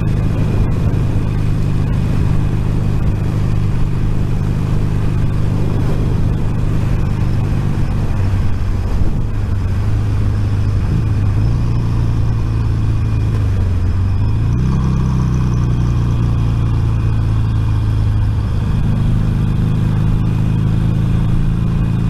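Motorcycle engine and wind and road noise at speed, heard through a microphone inside the rider's crash helmet. The engine note drops a few seconds in as the bike slows for the turn-off, then steps back up a little past halfway.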